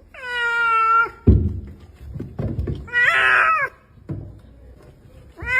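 A cat meowing: one long, steady meow, then a shorter wavering one a couple of seconds later, with two dull thunks in between.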